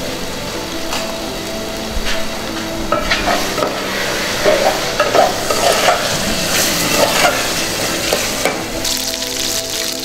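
Hot oil sizzling in a small iron frying pan, with a spoon scraping and clinking against an aluminium pot as it is stirred in the middle; the sizzle turns brighter and hissier near the end.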